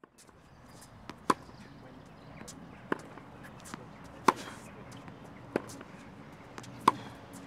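Tennis rally on a hard court: five sharp pops of the ball being struck by rackets and bouncing on the court, about one and a half seconds apart, with a few fainter clicks between.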